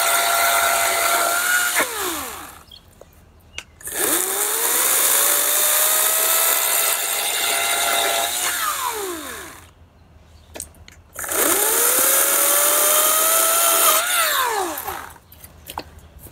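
EGO 56-volt cordless 14-inch electric chainsaw (CS1401) bucking a fallen log. It runs in three bursts, each opening with a quick rising whine, holding a steady high whine, and winding down with a falling whine, with short pauses between.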